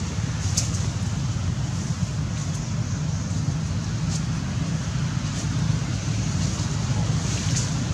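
Steady low outdoor rumble, like wind on the microphone or distant traffic, with a few faint, brief high crackles scattered through it.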